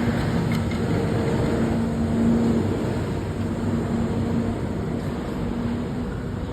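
Street traffic: a motor vehicle going by with a steady low hum that grows loudest about two seconds in and fades near the end.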